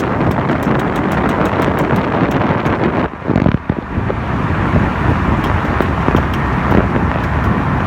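Rapid, regular knocking from the rear driveline of a BMW E60 driving in gear, about six or seven knocks a second over road and wind noise, with a thump a little after three seconds in. The knock comes from a worn outer CV joint on the driver's-side rear output shaft, which was cured by replacing the whole shaft.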